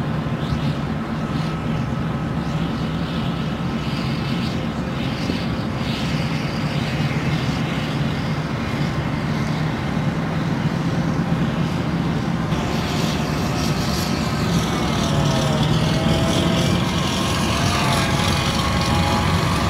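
Tracked amphibious assault vehicles' diesel engines running steadily as they drive through the surf onto the beach, with a constant low hum. Washing surf and spray hiss grow louder in the last third.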